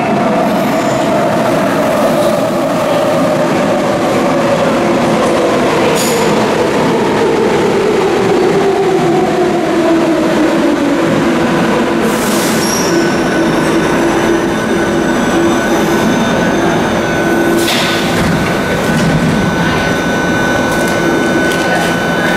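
Athens Metro train pulling into an underground station and braking to a stop, its motor whine falling steadily in pitch over about ten seconds and then holding at a low steady pitch. Three brief hisses come about six, twelve and eighteen seconds in.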